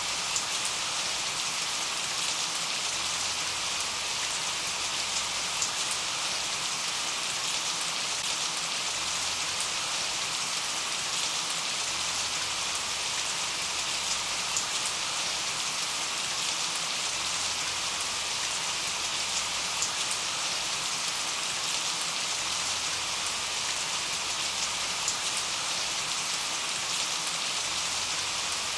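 Steady rain falling: an even hiss with scattered sharper drop ticks, unchanging throughout.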